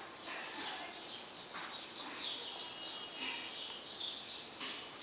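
Eastern gray squirrel scratching and digging in dry wood-chip mulch: rustling, with a sharper scrape about a second and a half in and another near the end. Birds chirp faintly in the background.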